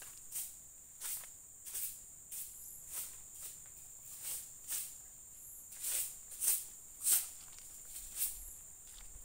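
A steady high-pitched insect chorus drones throughout, with footsteps at a walking pace, roughly two a second.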